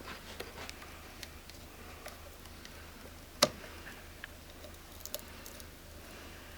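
Light metal clicks and ticks of a small flathead screwdriver and pick working a circlip out of a KYB rear shock body, with one sharper click about three and a half seconds in.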